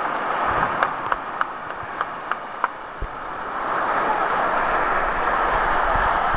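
Surf washing over a cobble beach, with a run of sharp clacks of stones knocking together over the first few seconds. The wash swells louder about four seconds in.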